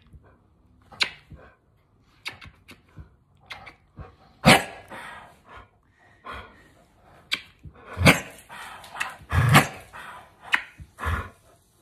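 Repeated kissing smacks on a 17-year-old dog, broken by the dog's short, loud barking vocalisations about four times: the senior dog objecting to being kissed.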